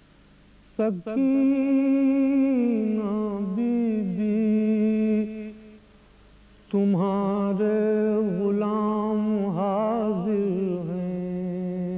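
A man's unaccompanied voice chanting a salam, Urdu elegiac devotional verse, in long held notes with wavering ornaments. It comes in two phrases with a pause of about a second between them.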